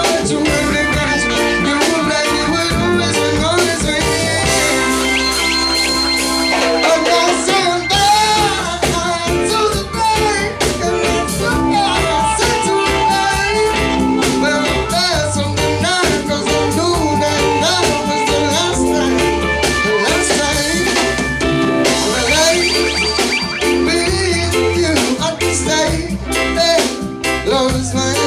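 Live acoustic performance: a male singer singing over guitar, with a steady beat.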